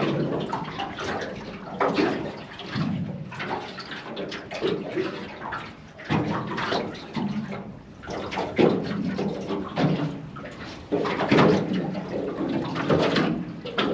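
Water sloshing and splashing irregularly, swelling and dropping from moment to moment.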